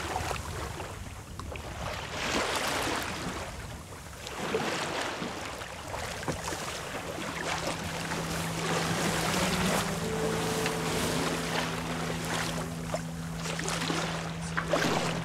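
Wind and sea water rushing past a sailboat under way, with wind buffeting the microphone. About halfway through, a steady low hum comes in under the rush and holds.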